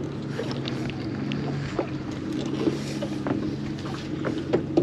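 Boat's outboard motor idling with a steady low hum, over wind and water noise, with a few small knocks.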